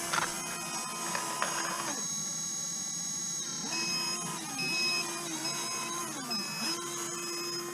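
Small electric motor and gears of a radio-controlled model whining in several short runs, each starting, holding a steady pitch, then dropping away.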